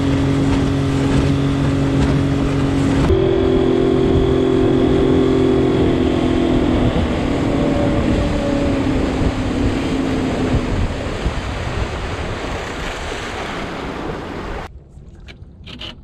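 Small skiff's tiller-steered outboard motor running at speed, with wind and rushing water over it. After about three seconds the engine note falls gradually lower over several seconds as it throttles down, and near the end the sound cuts to much quieter wind and water.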